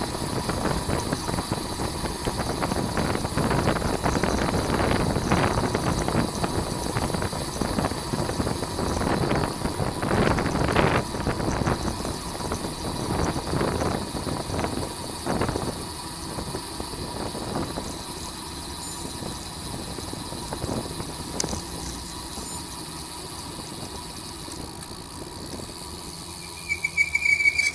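Wind rushing over the microphone of a camera riding on a racing bicycle, with tyre and road noise, swelling in gusts and easing after about halfway. A short high squeal sounds near the end.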